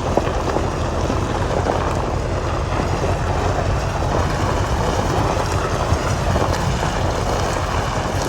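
Pickup truck driving on a bumpy dirt road: a steady engine drone under continuous road noise.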